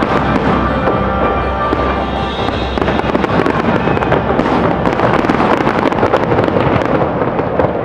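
Finale barrage of aerial fireworks: many shells bursting in quick succession with dense crackling and no break, growing thicker about three seconds in.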